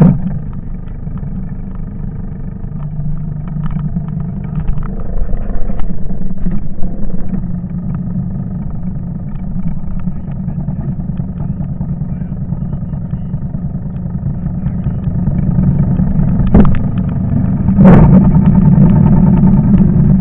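A farm machine's engine running steadily, getting louder near the end, with two sharp knocks close together.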